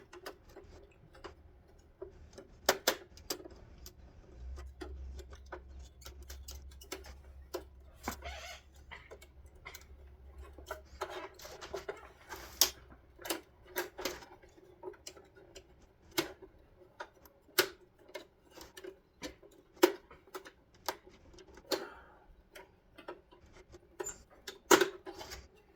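Irregular sharp clicks and taps of tools and plastic parts as a car headlight assembly is pried apart and its pieces popped out. A faint low hum sits underneath for several seconds near the start.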